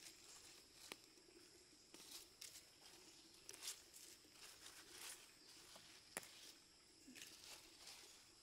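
Near silence broken by faint scattered rustles and light taps, with one sharper click about six seconds in.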